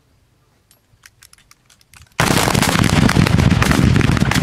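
A line of Böllerschützen firing black-powder hand-held salute guns (Handböller) in a running volley along the line. A few faint distant cracks come first; then, about two seconds in, it turns abruptly into a loud, dense rattle of many overlapping bangs that keeps going.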